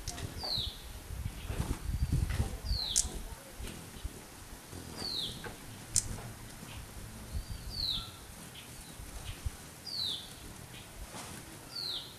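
A bird repeating a short, high call that slides downward, about once every two seconds. Two sharp clicks and a low rumble around two seconds in are heard among the calls.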